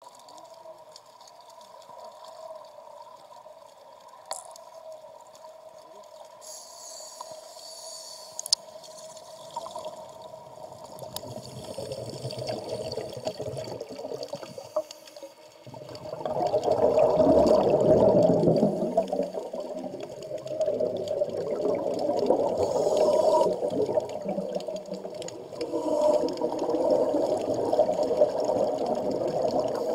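Underwater sound among scuba divers: a steady hum throughout, joined from about halfway by louder, uneven bubbling and gurgling from the divers' exhaled air.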